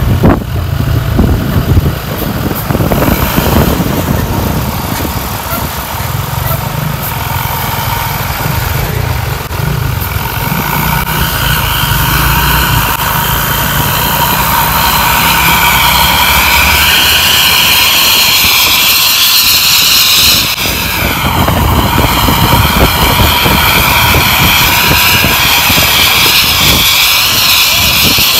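ANS bus's aftermarket 'srigala' (wolf) exhaust under way: a low engine rumble at first, then from about the middle a loud high whine sets in and holds, a jet-like sound compared to an aircraft taking off.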